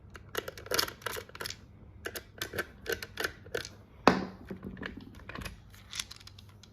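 Screwdriver taking the two screws out of a smart lock's inside cover: a run of irregular small clicks and scrapes, with a louder knock about four seconds in.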